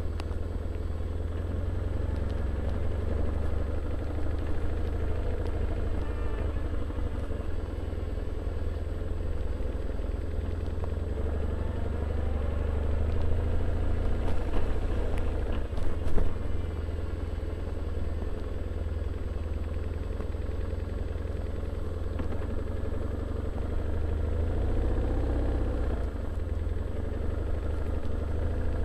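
BMW R1150R's boxer-twin engine running steadily as the motorcycle moves slowly, getting louder for a few seconds about halfway through.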